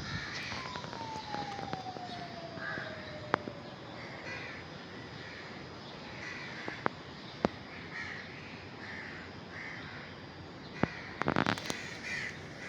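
Birds calling repeatedly, short calls roughly once a second, with a few sharp clicks and a brief rattle of clicks near the end.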